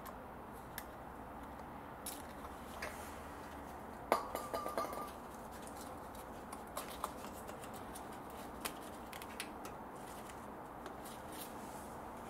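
Handling noises as the plug is pushed back onto the air-con condenser's sensor: scattered small plastic clicks, with a short clatter and squeak about four seconds in, over steady low background noise.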